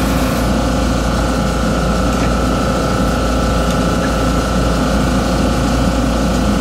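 Steady drone of a small electric motor, a constant whine over a low hum, running without a break.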